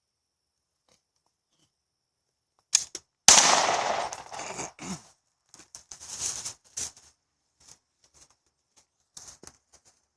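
A single gunshot about three seconds in, with a long decaying echo, followed by a scatter of short clicks and rustles.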